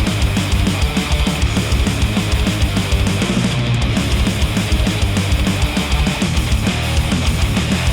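Heavy rock or metal music with electric guitar over a fast, steady beat, played back through headphones and picked up by microphones at the earcups.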